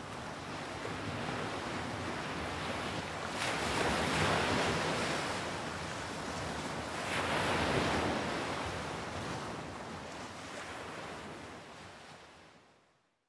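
Ocean surf breaking on a sandy beach, a steady wash of noise that swells with two waves about four and eight seconds in, then fades out near the end.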